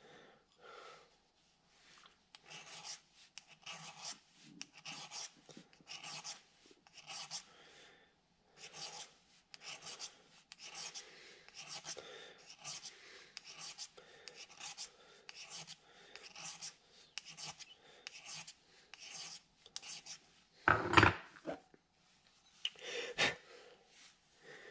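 Small hand file rasping back and forth across a small metal key, about two strokes a second, filing down a high spot so the key fits a lathe change gear's keyway. Near the end, two louder knocks.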